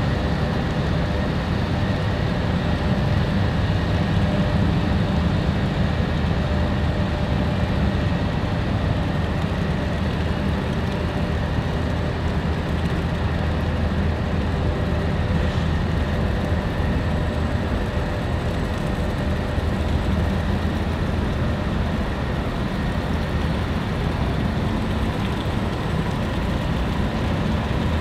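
Marine diesel engines of a cargo ship and an assisting tugboat running, a steady low rumble.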